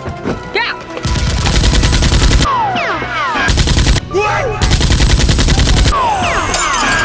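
Rapid machine-gun fire sound effects in three bursts, the longest about a second and a half, with falling whistling tones between the bursts.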